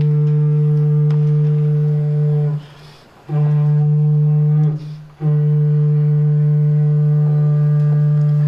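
A low wind instrument sounding one steady droning note, blown in three long breaths with short pauses between them.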